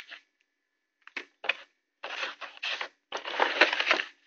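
Plastic packaging handled close to the microphone: two small clicks, then rustling and crackling with clicks in two longer stretches.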